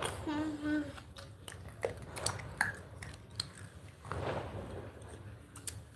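A woman hums a short steady note for under a second, followed by scattered soft mouth clicks and smacks and a breathy sound.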